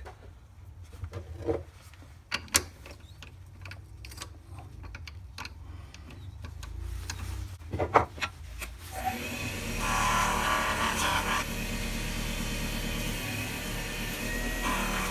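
Clicks and knocks as a spalted maple bangle is handled and seated in a four-jaw chuck, with a sharp knock about eight seconds in. About nine seconds in the mini lathe starts and runs steadily, with a rubbing hiss as friction wax polish is burnished onto the spinning bangle.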